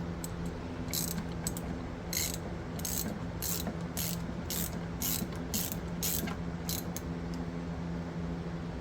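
Hand ratchet wrench clicking in steady strokes, about twice a second, as the bolts holding a generator's covers are run down. A steady low hum sits underneath.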